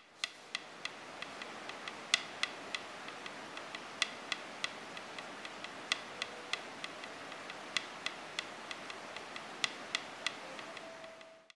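Sharp ticking clicks, about three a second and uneven in loudness, over a steady hiss, with a faint whistle-like tone near the end.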